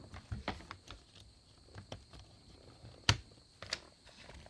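Small clicks and knocks of a Sig MCX Virtus rifle being opened up by hand, its parts shifting and snapping as it is taken apart, with one sharper click about three seconds in.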